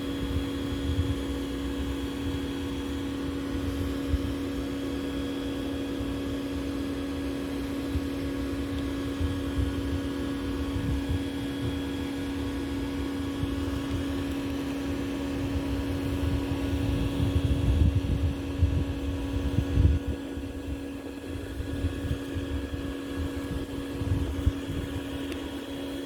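A steady mechanical hum at one fixed pitch, like a fan or motor running, under irregular low rumbling and bumps that grow louder past the middle.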